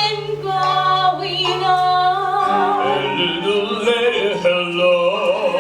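Musical-theatre singing: a voice holding long notes with vibrato over a sustained accompaniment that changes chord about halfway through.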